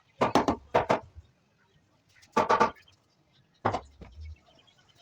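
Tool striking wood in a few separate sharp blows: two in the first second, one about halfway through and one a second later.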